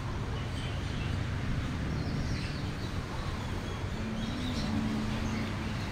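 Outdoor park ambience: a steady low rumble with birds chirping here and there, and a low steady hum joining about four seconds in.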